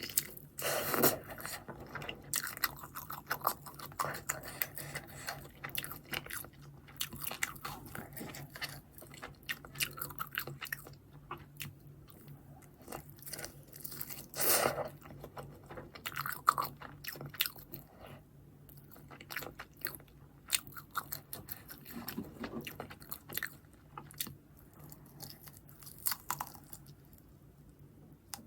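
Close-miked eating: irregular crunchy bites and chewing of food, with the loudest crunches about a second in and near the middle.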